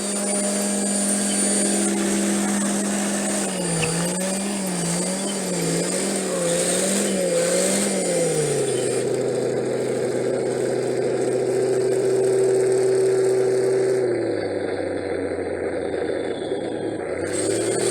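Remote-control excavator running: a steady motor hum that wavers up and down in pitch for several seconds, then settles lower and steps down again.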